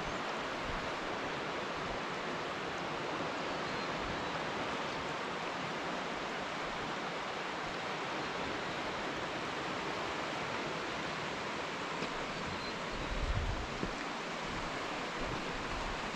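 River water rushing through a rocky gorge: a steady, even hiss. A brief low buffet of wind on the microphone comes about 13 seconds in.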